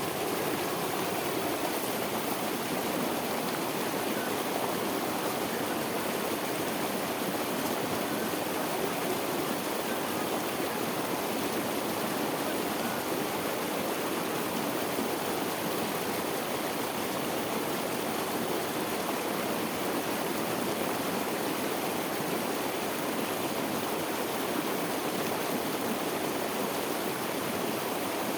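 Steady rush of water pouring over a small waterfall into a whirlpool, an even noise with no change throughout.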